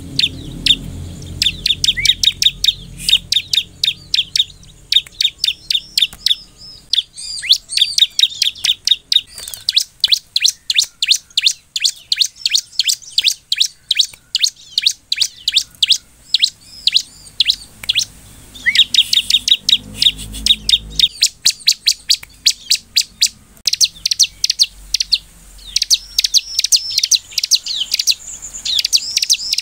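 Bar-winged prinia (ciblek) calling: rapid runs of sharp, high chirps, several a second, carrying on with only brief pauses.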